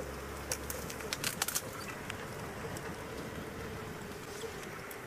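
A dove cooing in a long, even run of low notes. A low vehicle engine hum fades out about a second in, and a few sharp clicks come soon after.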